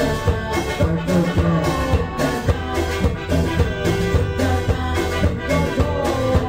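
Band music: an instrumental passage of the medley with a steady dance beat under a melodic line, no singing.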